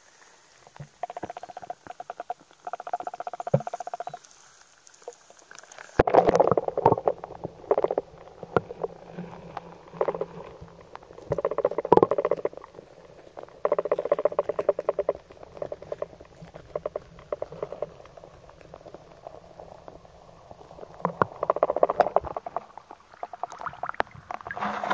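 Water bubbling and crackling around a camera dipped under the surface of a stream, in irregular surges that turn loud about six seconds in.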